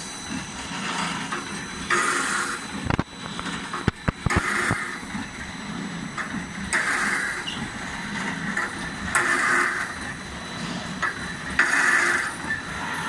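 Welded wire mesh machine running through its cycle, with a burst of noise about every two and a half seconds, a few sharp clicks near the middle and a steady high whine underneath.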